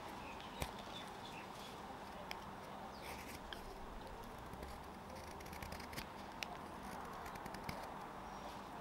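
Small carving knife paring a nectarine-wood fork: scattered sharp clicks and ticks as the blade slices off fine shavings, about five distinct cuts over several seconds.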